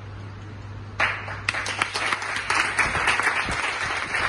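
Audience applauding, many hands clapping, starting suddenly about a second in after a brief lull with a low steady hum.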